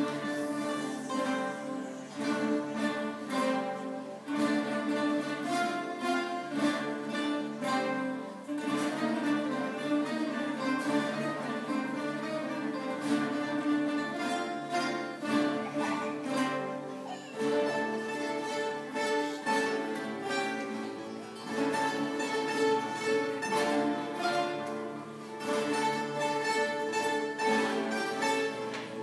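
A large guitar ensemble of about 88 acoustic guitars playing together. Many plucked notes sound at once in a steady rhythm.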